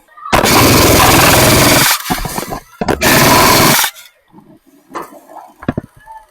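Airsoft gun firing full-auto close to the microphone: one long burst, then a shorter one about a second later, followed by a few faint knocks.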